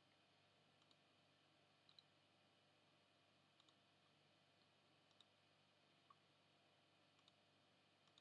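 Near silence with faint computer mouse clicks every second or two, some in quick pairs.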